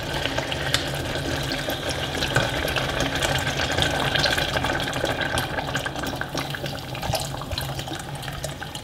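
Soy sauce pouring from a bottle into a hot saucepan of sautéed onion, garlic and ginger with caramelized sugar, deglazing it. The pour runs as a steady liquid rush with fine crackling.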